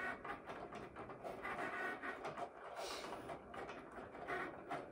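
Cricut Explore cutting machine running a test cut on cardstock, its motors whirring as the blade carriage and rollers move the mat back and forth.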